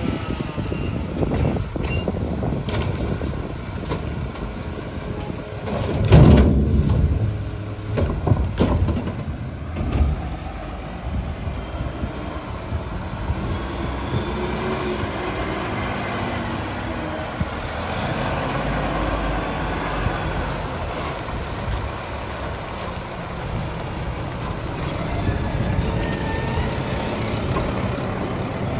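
Mack LR front-loader garbage truck's engine running as it drives up and past, with a loud air-brake hiss about six seconds in and shorter bursts after it.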